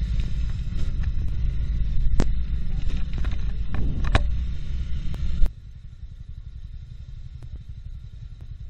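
Yamaha XMAX maxi scooter on the move in city traffic: a loud low rumble of engine and wind, with a couple of sharp clicks. About five and a half seconds in the sound drops abruptly to a much quieter low hum as the scooter sits at a red light.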